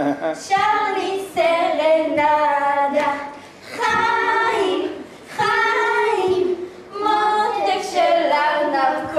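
Young girls singing a song together without accompaniment, in phrases broken by short pauses.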